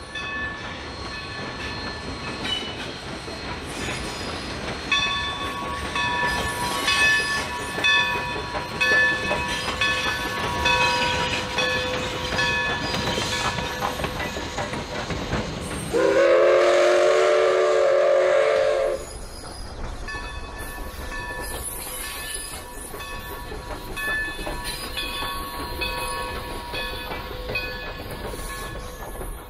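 Steam-hauled freight train rolling past, with wheels clicking over the rails and a high metallic squeal coming and going. About two-thirds of the way in, the Santa Maria Valley No. 205 steam locomotive's whistle sounds one long chime blast of about three seconds, the loudest sound.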